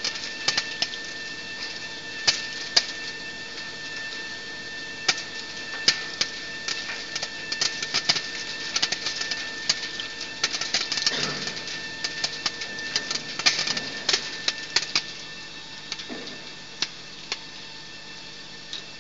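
Optical color sorter running on dried chili peppers: irregular sharp clicks and taps from its air-jet ejector valves and pods striking the metal chute, over a steady machine hum with a thin high whine. The clicks come thickest about ten to fifteen seconds in and thin out near the end.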